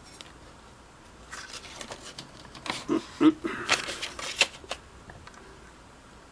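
A scattered run of small clicks, taps and scrapes of a small screwdriver and metal parts being handled at a sewing machine's needle clamp, lasting about three seconds in the middle, with a few duller knocks among them.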